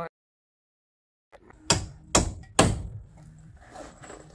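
Three sharp claw-hammer blows about half a second apart on the timber wall framing, each with a short ringing tail, after about a second of silence, followed by softer knocks and tool handling.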